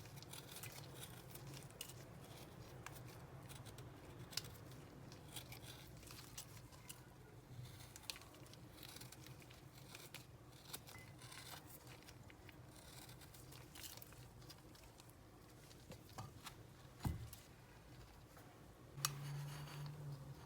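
Faint food-preparation sounds: cutting and scraping with scattered light clicks over a low steady hum, and a single knock late on.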